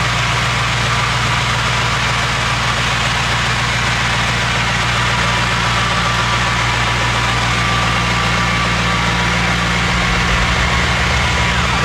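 2024 Mercedes-AMG G63's twin-turbo 4.0-litre V8 idling steadily through an Akrapovič Evolution titanium exhaust.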